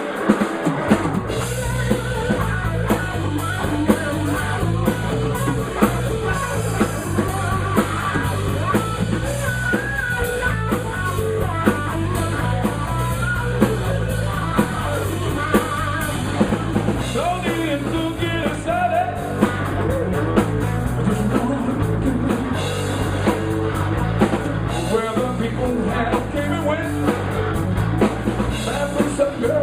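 Live rock band playing an instrumental break: a lead line with bent, wavering notes over a steady bass line and a drum kit beat.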